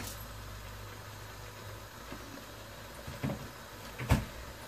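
Two short knocks of kitchenware being handled, the second louder, over a faint steady low hum.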